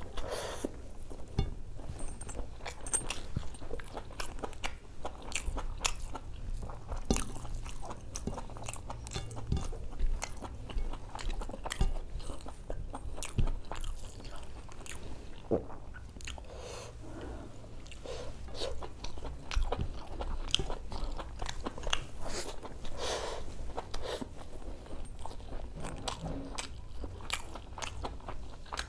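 Close-miked chewing of spicy mutton boti (goat large intestine) and khichdi eaten by hand: a dense, irregular run of mouth clicks and smacks.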